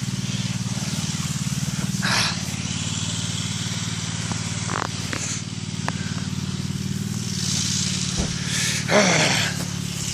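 An engine running at a steady idle-like drone, with two short rushes of noise about two seconds in and near the end, and a few faint clicks around the middle.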